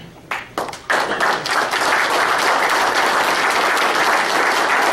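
Audience applauding: a few short sounds in the first second, then a room full of clapping that swells in about a second in and holds steady.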